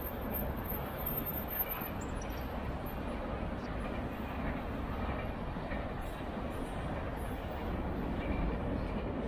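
Alstom Citadis 302 tram running: a steady low rumble from its motors and wheels on the rails.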